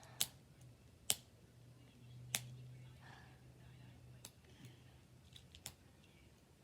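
Scattered sharp clicks and snaps of plastic wrapping as fingers pick at and peel the layers of a LOL Surprise toy ball, about five distinct clicks irregularly spaced a second or so apart.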